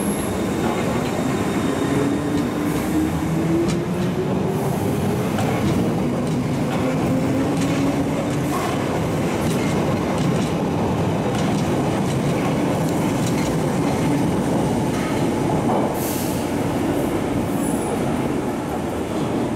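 London Underground Piccadilly line 1973 Tube Stock train pulling out and picking up speed, with a rising whine over the steady rumble and clatter of its wheels on the track.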